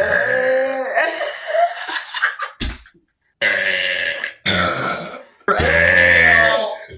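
Loud human burps, one after another: a long wavering one at the start, then, after a short break, three more, the last the loudest and longest.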